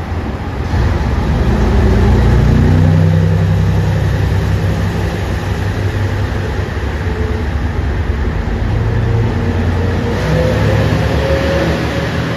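Diesel engines of a JR Shikoku 2700 series limited express railcar revving up as the train pulls away from the platform. A rising whine joins near the end.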